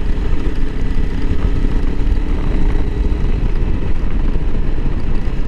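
Single-cylinder engine of a Honda CRF300L Rally motorcycle running at a steady speed while riding, mixed with heavy low rumble from wind on the microphone.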